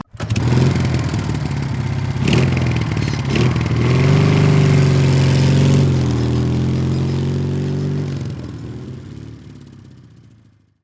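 Small four-stroke single-cylinder engine of a Tao Tao 110/125cc ATV running and revving. It rises in pitch about four seconds in, holds, then fades away over the last few seconds as the four-wheeler rides off.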